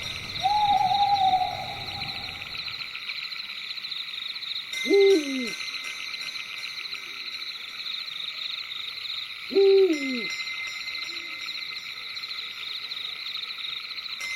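Night forest ambience: a steady chorus of crickets, with two short owl hoots about five seconds apart and a longer, held call in the first two seconds.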